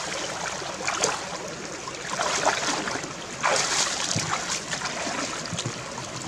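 A shallow stream running over rocks, with several brief splashes of water as someone wades in it.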